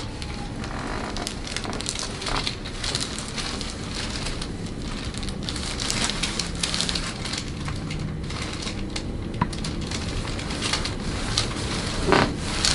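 Rustling and crackling as a patient's body and clothing shift on a chiropractic treatment table, with scattered small clicks and taps.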